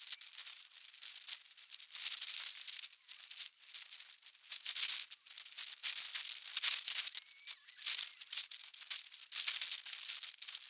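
Outdoor ambient sound sped up 36 times with the time-lapse, heard as irregular bursts of high, crackling hiss.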